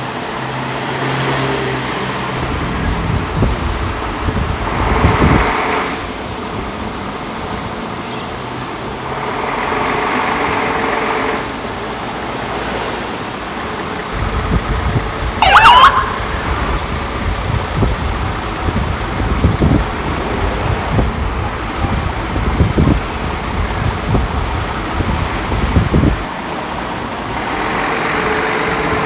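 Scania 94D fire truck's diesel engine running as the pumper pulls out and drives off. About halfway through, a short rising siren whoop is the loudest sound.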